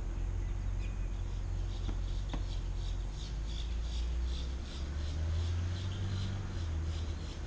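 A repeated high-pitched chirp, about three a second, over a steady low rumble, with a couple of faint clicks near the start.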